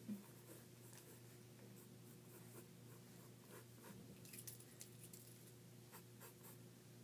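Faint scratching of pens drawing on sketchbook paper in short, irregular strokes over a low steady room hum, with a soft bump right at the start.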